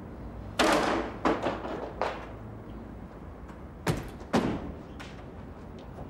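Five heavy thuds on a locked wooden door as it is kicked at, in two groups of three and two over about four seconds.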